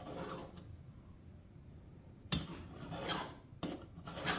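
A file being stroked across the cutting teeth of a chainsaw chain, sharpening dull teeth at a 30-degree angle. It is faint at first, then about four short strokes come in quick succession over the second half.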